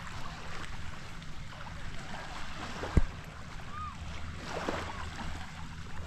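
Beach ambience: waves washing over a low, steady hum, with one sharp thump about three seconds in.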